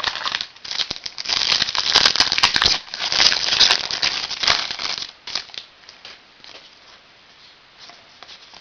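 Foil trading-card pack wrapper crinkling and tearing as it is opened, for about five seconds, followed by a few light clicks of cards being handled.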